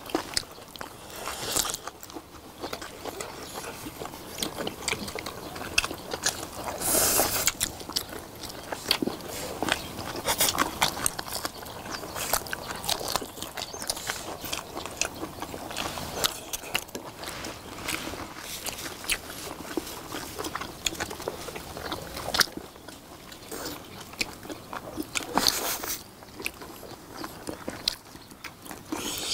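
Close-miked eating: several people chewing and biting braised beef short ribs, a dense run of small clicks and smacks, louder at moments about seven seconds in and near the end.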